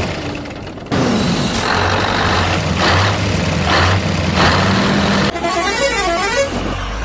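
Heavy vehicle engine running, with a few short hissing bursts; about five seconds in, a short horn tune of falling and rising notes sounds.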